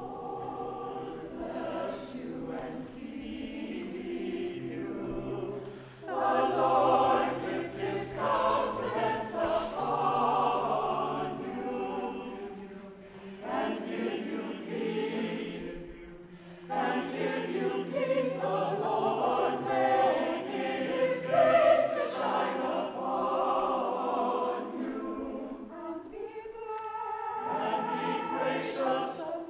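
Church chancel choir singing, in phrases that swell and ease back, with brief breaks between phrases about 6, 13, 16 and 26 seconds in.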